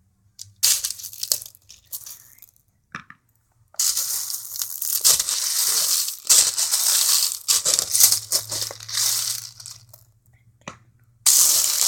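Hands digging through a bucket of small plastic beads, making a dense rustling rattle. It comes in short bursts at first, then runs almost without a break from about four seconds in until shortly before the end.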